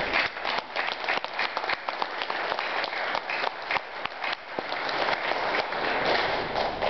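Audience applauding: many hands clapping in a dense, even patter that grows a little louder past the middle.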